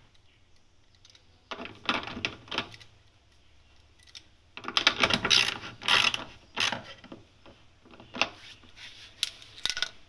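Spells of mechanical clicking and ratcheting on a twin tub washing machine, in three irregular bursts starting about a second and a half, four and a half, and eight seconds in.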